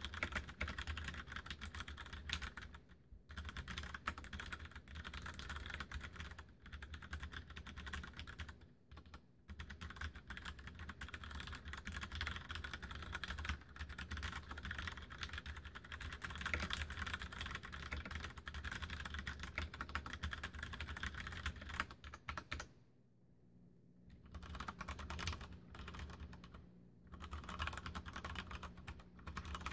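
Mstone Groove87 mechanical keyboard with brown tactile switches being typed on steadily and quickly, a dense run of key clacks with a few short pauses, the longest about 23 seconds in.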